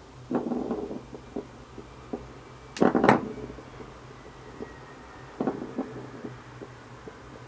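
Trackball ball from a computer mouse rolling and knocking as a cat bats it about: a short rolling rumble about half a second in, a loud clatter of sharp knocks around three seconds in, another short rattle a little before six seconds, and light ticks between.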